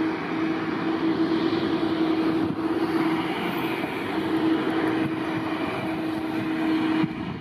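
Airliner engines running, a steady rushing noise with a steady hum underneath, cut off suddenly near the end.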